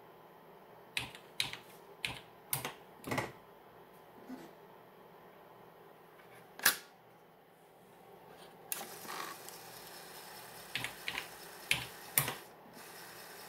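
Sharp single clicks about half a second to a second apart, then about nine seconds in the opened floppy drive starts running with a steady whir and a few more clicks, as it tries to read a bare floppy disk mounted without its jacket.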